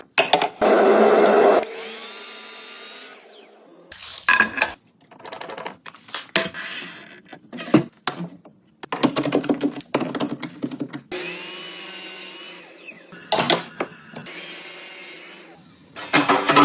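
Woodworking power tools run in a series of short, abruptly cut bursts, with the motor whine rising and falling between cuts.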